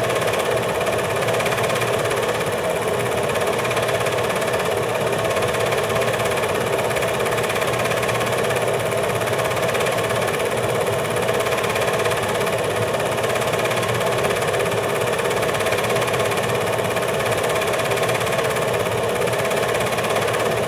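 Steady mechanical running drone at an even level, with no change or break.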